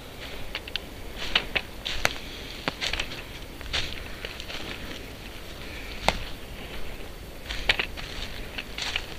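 Footsteps moving through a forest floor of dry needles and twigs, with irregular crackling and sharp twig snaps, the loudest about two seconds in and about six seconds in.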